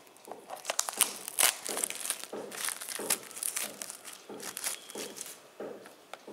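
Clear plastic shrink-wrap being torn and peeled off a Blu-ray case, crinkling and crackling in irregular bursts that die down near the end.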